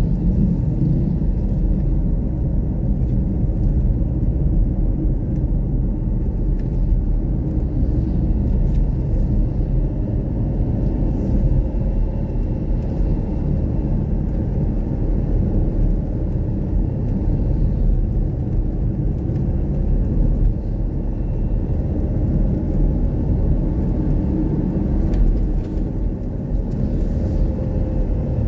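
Steady low rumble of a road vehicle on the move, heard from on board.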